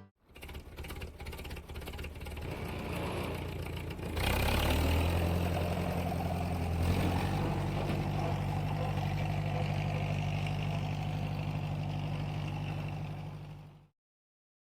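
A small motor running with a fast clatter that settles into a steady hum, getting louder about four seconds in and changing pitch around seven seconds in, then cutting off abruptly near the end.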